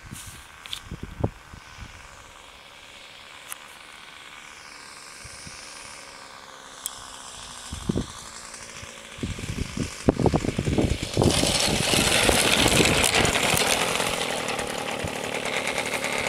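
Small glow engine of a Kyosho Calmato .40 trainer RC airplane: first a faint, distant whine that dips and rises in pitch as the plane comes in low, then a few thumps, and from about two-thirds of the way in a loud, steady buzz as the plane is close by on the grass.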